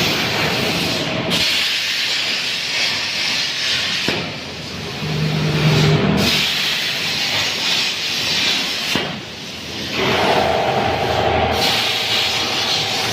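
CNC plasma cutting torch hissing as it cuts metal, in long stretches broken by short gaps where the arc stops and restarts.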